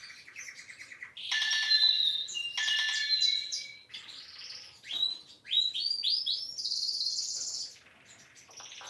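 Nokia 3220 ringtone made of bird-like chirps and trills, with a run of quick rising chirps about five seconds in. It quietens near the end.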